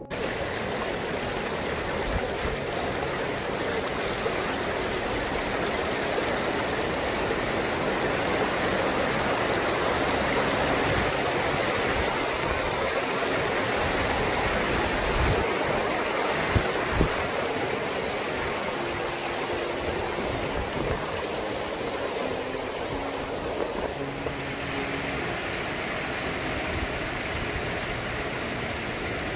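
Water rushing and splashing over a small stone weir, a steady stream-like rush with a few dull bumps near the middle. About four-fifths of the way through the rush turns brighter and hissier as a broad waterfall cascading into a pool takes over.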